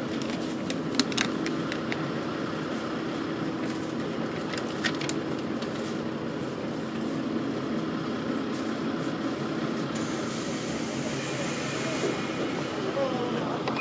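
Cabin sound of a diesel railcar standing at a station: its engine idles with a steady hum. There are a few sharp clicks about one second and about five seconds in, and a hiss of air for about two seconds near the end.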